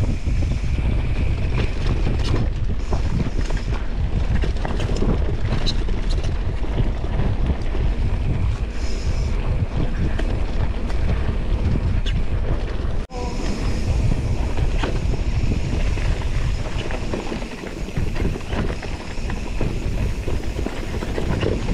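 Wind rushing over the microphone of a mountain bike riding downhill on a dirt trail, with tyre rumble and scattered clicks and rattles from the bike. The sound drops out for an instant a little past halfway, then carries on.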